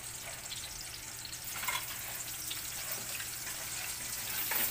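Fish frying in hot oil in a pan: a steady sizzle with scattered small crackles and a few pops near the end.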